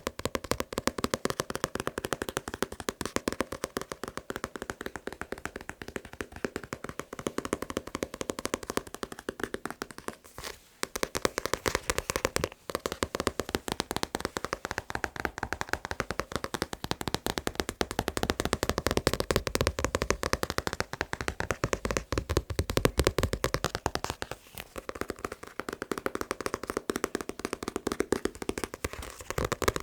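Fast, continuous tapping on a manga book, with two brief pauses about a third of the way in.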